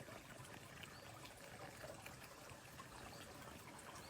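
Near silence: faint room hiss with a few tiny faint clicks.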